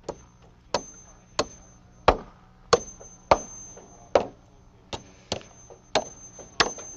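A hammer driving nails into framing lumber with steady, even blows, about eleven strikes at roughly one and a half a second, each with a short ring. The rim joists of a bay floor are being nailed on.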